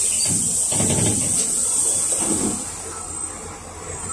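Loud hiss of compressed air released by the pneumatic system of a PAZ 320540-22 bus, heard from inside the passenger cabin; the hiss fades out about two and a half seconds in, over the steady low hum of the running bus and a few low knocks.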